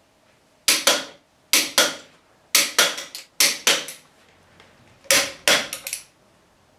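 Wrench clicking as the motorcycle's front fork, axle and caliper bolts are tightened to final torque. The sharp clicks come in five quick groups of two to five.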